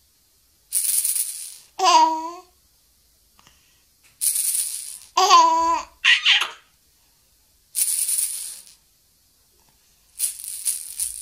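A plastic lattice ball rattle with bead-filled capsules is shaken in four short bursts, and a baby answers the first two shakes with high laughing squeals.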